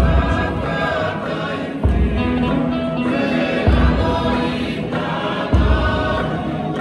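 Tongan tau'olunga song sung by a group in harmony, with a deep beat landing about every two seconds.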